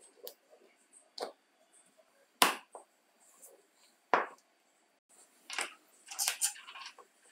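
Small metal parts of an impact driver being handled and set down on a wooden bench: a series of separate clicks and knocks, the loudest about two and a half seconds in, with a quicker run of clicks near the end.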